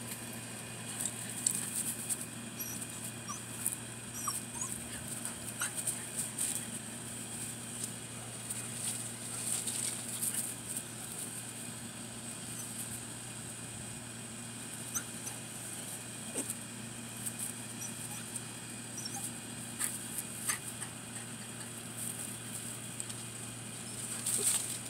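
English cocker spaniel giving short, soft whimpers now and then while sniffing at a cat, with small scattered clicks and rustles, over a steady high-pitched hiss.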